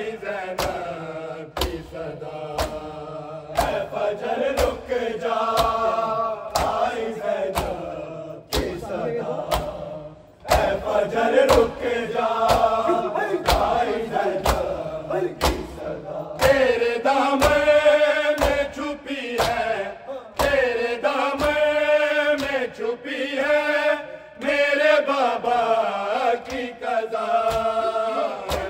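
A group of men chanting a noha, a Shia mourning lament, in long sung phrases over a steady rhythm of open hands beating on bare chests (matam).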